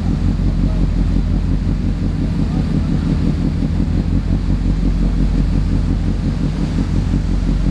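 A boat's engine drones steadily as a low, even rumble with a hum in it. Wind buffets the microphone over it.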